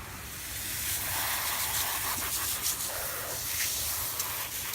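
A steady hiss that rises just after the start and holds, with a low rumble underneath.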